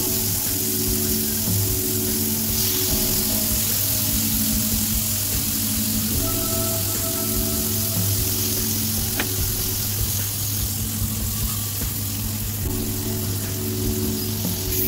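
Raw chicken breasts sizzling in hot melted butter on a grill pan as they are laid in, a steady frying hiss. Soft background music with held notes plays alongside.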